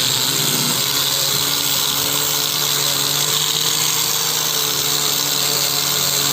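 Handheld electric power tool, a drill or grinder, running steadily at constant speed, stripping paint off the bare motorcycle frame.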